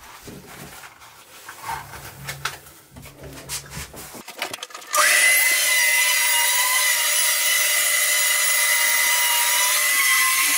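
Random orbital sander starts about halfway through and runs steadily with a high whine, sanding a wooden skateboard deck with 220-grit paper. Before it starts there are light handling knocks and rubbing.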